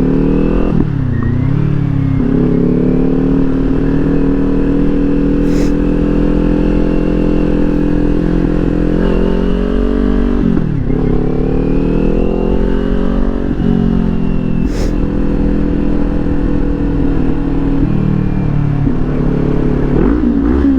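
Kawasaki Ninja 400's parallel-twin engine on its stock exhaust, running steadily under way. Its pitch drops sharply and climbs again about a second in and near the middle, with another drop near the end, as the rider shifts gear or rolls off the throttle.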